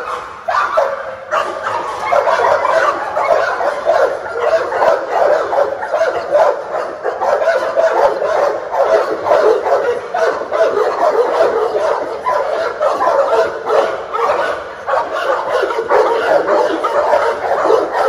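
Several kennelled pitbull-type dogs barking and yipping over one another in a continuous din.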